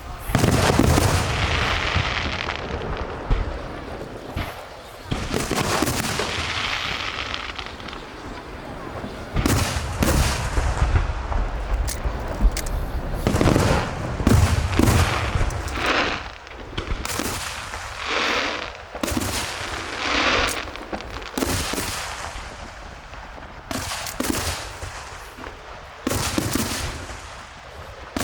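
Aerial fireworks show: shells bursting one after another in quick succession, sharp bangs and booms, each followed by a lingering crackle and rumble.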